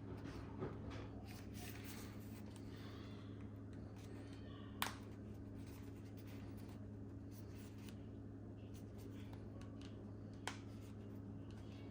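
Faint rustling and scraping of a replacement ear pad being worked onto a Bose QC35 headphone earcup, with two sharp clicks, about five seconds in and near the end, as the pad's edge snaps under the cup's retaining hooks.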